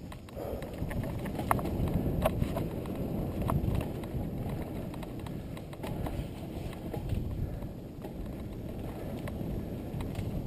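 Mountain bike riding over a dirt singletrack trail, heard from a helmet-mounted camera: a continuous, uneven rumble of tyres on dirt and wind on the microphone, with scattered sharp clicks and rattles as the bike hits bumps.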